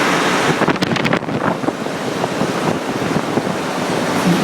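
Loud, steady rushing noise with no clear pitch, with a short run of sharp clicks or knocks about a second in.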